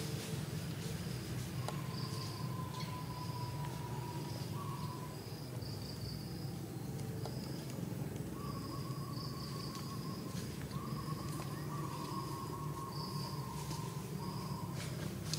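Outdoor ambience of wild animal calls: long, slightly falling whistles come several times, and short high chirps repeat throughout, over a steady low rumble.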